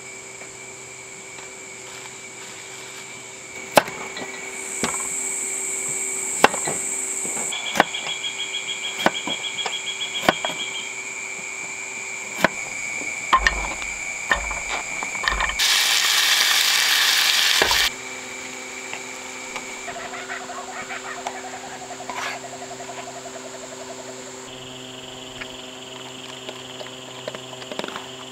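A steady evening chorus of insects and frogs, many unbroken buzzing tones at several pitches, under scattered sharp clicks and knocks of camp cooking. Halfway through, a loud hiss lasts about two seconds and then cuts off.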